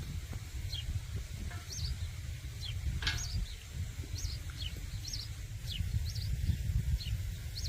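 A small songbird calling over and over in short, high chirps, about two a second, over a steady low rumble. A single brief knock sounds about three seconds in.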